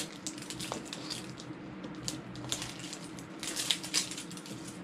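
Hollow plastic blind-box capsule balls handled and pried open by hand: a run of small plastic clicks and crinkles, busiest near the end.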